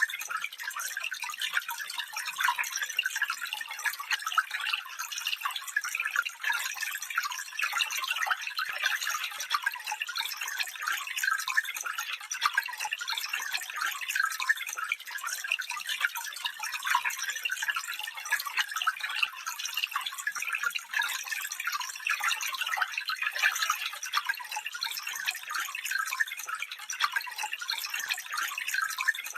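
Small stream of water flowing, a steady light trickling and splashing with no deep rumble.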